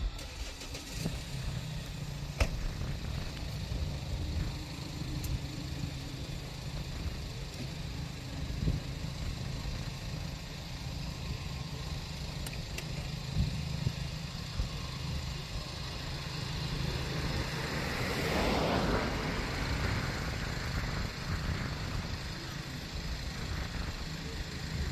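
Jet engines of an Asiana Airlines airliner at low taxi power as it rolls and turns on the runway: a steady low rumble, with a swell of rushing noise about three-quarters of the way through.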